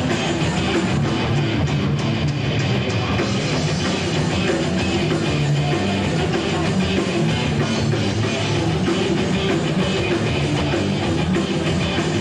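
Heavy metal recording: electric guitars over a drum kit, playing at a steady level without a break.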